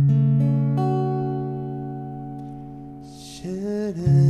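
Acoustic guitar: a chord with a low C in the bass, its notes entering one after another and then left to ring and slowly fade. Near the end comes a short voice sound, and then a second chord is struck. The chords show the ending move from C to F minor over a C bass.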